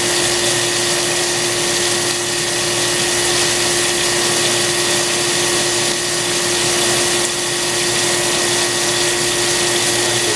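CNC cylindrical grinder grinding a steel shaft under a flood of coolant: an even hiss of spraying coolant and wheel on metal over a steady machine hum and a higher whine, unchanging throughout.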